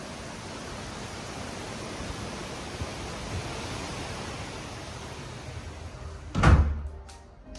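Steady rushing outdoor ambience, then one heavy thud about six and a half seconds in as a glass door is shut, after which the rushing falls away.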